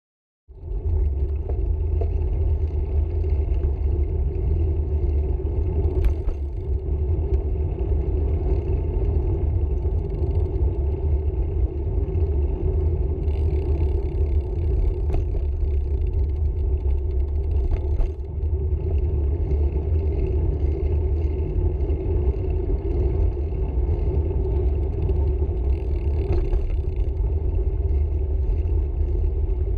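Steady low rumble of road and wind noise on the microphone of a camera travelling along a paved street, with a few sharp clicks and knocks. It starts abruptly about half a second in.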